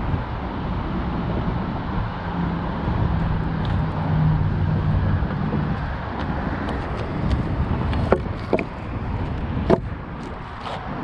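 Street traffic noise with a vehicle going by, its engine hum rising and fading over a few seconds. Near the end come three sharp knocks, the last the loudest.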